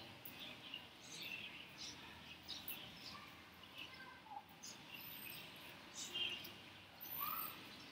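Faint background room noise with scattered short, high chirps and a couple of brief gliding tones.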